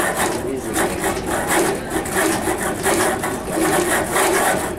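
Balsa wood model tower rattling and creaking on a shake table under the strongest of three test earthquake motions, in rasping pulses about three a second.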